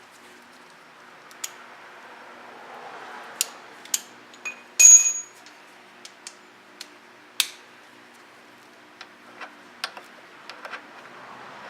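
Metal tools and parts clinking and tapping against each other: a dozen or so scattered clicks, with one loud ringing metallic clank about five seconds in. A faint steady hum lies underneath.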